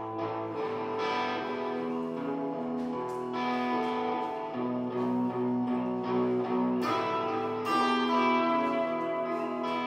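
Guitar played in a blues, plucked notes and chords over long held lower notes.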